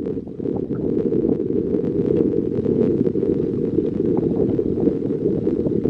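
Wind buffeting the microphone: a steady, dense low rumble, with faint ticks and knocks above it.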